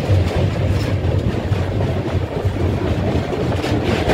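Express passenger train running along the track: the steady low rumble of the coaches' wheels on the rails.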